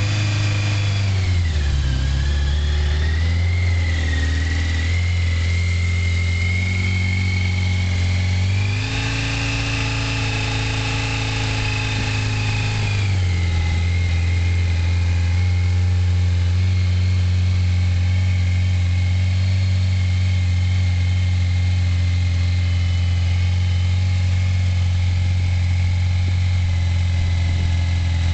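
1985 Yamaha FZ750's inline-four engine idling on full choke just after a cold start, warming up. The idle wavers at first, rises for about four seconds about nine seconds in, then settles back to a steady idle.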